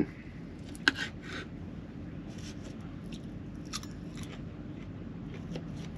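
Eating sounds: a sharp clink of a utensil about a second in, then scattered soft clicks and chewing over a steady low hum.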